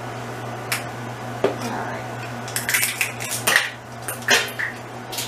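Kitchenware clattering against the stove and counter: a few light clicks, then a burst of rattling clatter for about a second around the middle, as something is dropped.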